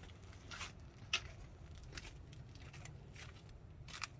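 A few faint clicks and rustles of handling, spaced out over a low steady hum.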